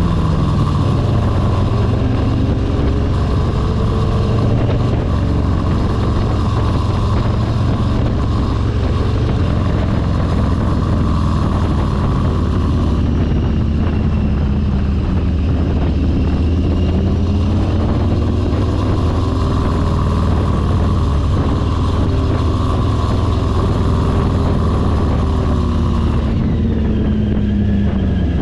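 Motorcycle engine running while under way, its pitch gliding up and down several times with the throttle over a steady low rumble.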